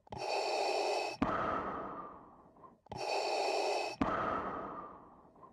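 Darth Vader's respirator breathing sound effect, in two slow breaths. Each is a steady hiss of about a second that stops with a click, then a longer hiss that fades away. A third breath begins at the very end.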